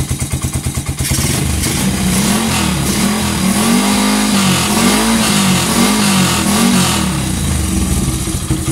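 Honda XRM110's small four-stroke single-cylinder engine through an aftermarket chrome muffler: idling, then blipped up and down repeatedly from about a second in, dropping back toward idle near the end. It runs and idles cleanly now that the tight intake valve clearance, the cause of its hard starting and poor idle, has been adjusted.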